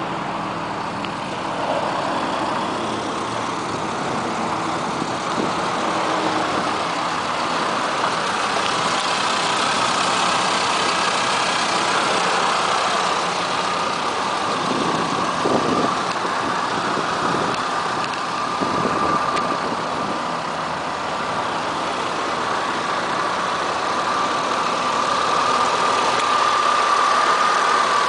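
1994 BMW M3 Euro model's 3.0-litre 24-valve inline six idling steadily, with a steady high whine that grows stronger near the end.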